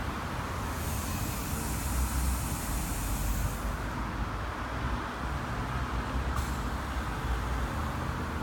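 Compressed air hissing through a service-station automatic tyre inflator into a car tyre as its pressure rises, loudest from about one to three and a half seconds in and starting again more faintly near the end, over a steady low rumble.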